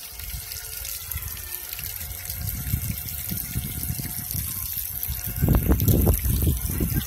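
Small pond fountain jet spraying and splashing water back onto the pond surface, a steady hiss. A louder low rumble swells for about a second around five and a half seconds in.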